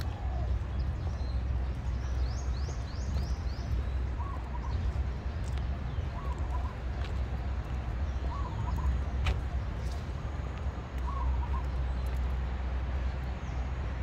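Birds calling: a short chirping call repeats every couple of seconds, and a quick high trill comes about two to three seconds in. Both sit over a steady low rumble.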